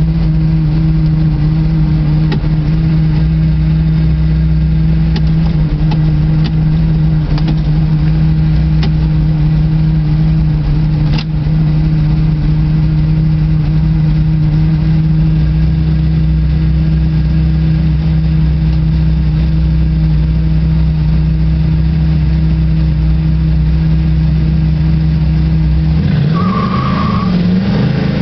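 Dodge Challenger's engine idling steadily, heard from inside the cabin, with a few faint clicks. About two seconds before the end it revs up as the car launches: the pitch climbs, drops at a gear change, and climbs again.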